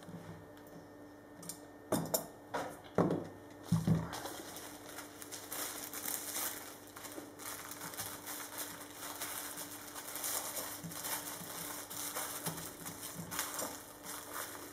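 Thin plastic release foil crinkling and rustling steadily as it is handled and pressed over a carbon-fibre part, after three short knocks in the first few seconds.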